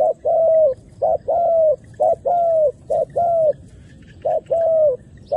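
A spotted dove, the decoy bird, cooing: repeated two-part coos, each a short note then a longer slightly falling one, about once a second with a brief pause after the fourth.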